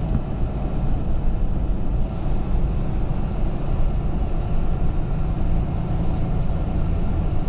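Semi truck driving at a steady speed: a continuous low engine and road rumble.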